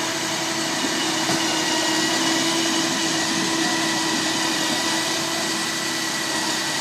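Mobile document-shredding truck's shredder machinery running steadily: a constant mechanical hum over an even rush of noise.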